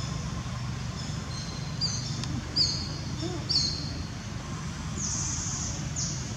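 Birds chirping, a handful of short high calls in the second to fourth seconds and a longer high note about five seconds in, over a steady low rumble like distant traffic.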